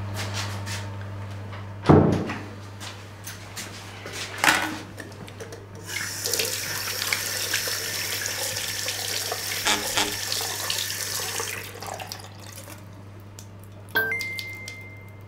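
Water running from a tap into a washbasin for about six seconds, over a steady low hum. A loud thump comes about two seconds in, and a short single-pitch phone message alert sounds near the end.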